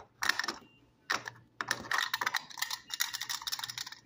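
Master Lock combination padlock clicking rapidly as it is handled and its dial is spun: a short burst of clicks, another about a second in, then a long fast run of clicks from about halfway through.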